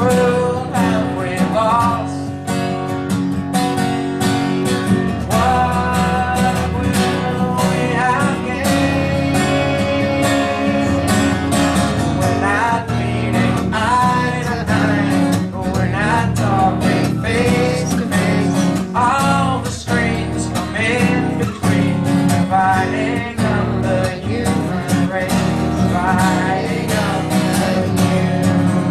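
A song with an acoustic guitar strummed steadily under a sung melody.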